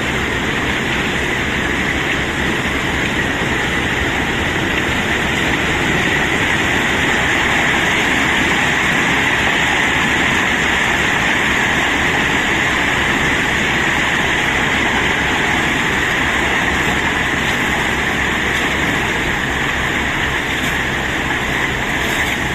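Steady, unbroken rumbling noise of cobblestones being unloaded, with no separate knocks standing out, over a running vehicle engine.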